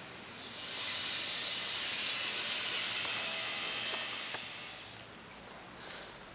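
Garden hose spraying a jet of water: a steady hiss that starts about half a second in and fades away around five seconds in.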